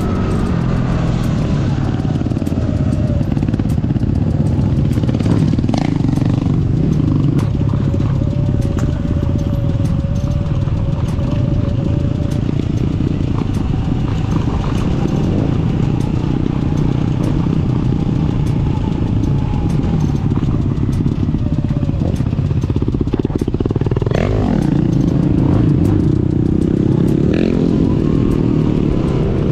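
Off-road motorcycle running along a bumpy dirt trail, with short clatters and rattles from the rough ground. Its pitch wanders with the throttle, dipping and then rising again about three-quarters of the way through.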